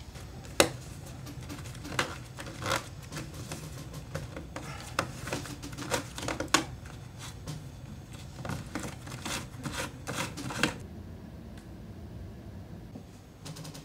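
Heavy rubber gloves being pulled and worked off the hands: an irregular string of sharp rubbery snaps and rustles, the loudest about half a second in and about six and a half seconds in, stopping after about ten and a half seconds.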